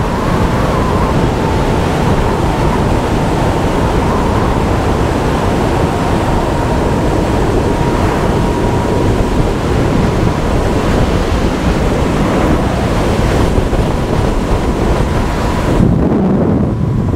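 Loud wind rushing over the microphone of a rider holding a Huck Stinger 3000 electric motorbike at full throttle near its top speed, with a thin steady whine from the electric drive underneath.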